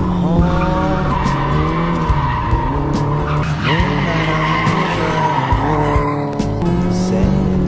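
Car engine revving under acceleration, its pitch rising and falling several times, with sharp rises about half a second in and again a little past three and a half seconds.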